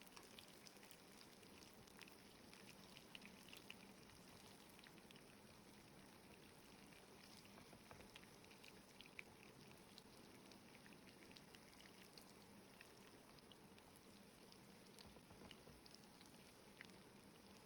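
Faint sizzling of batter-coated catfish deep frying in mustard oil, with scattered small crackles and pops.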